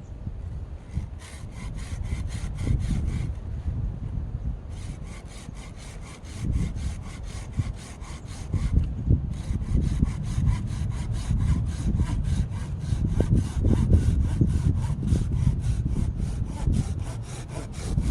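Hand saw cutting through firewood in quick, even strokes. There are two short pauses, one around 3 s in and one around 9 s in, then steady sawing to the end.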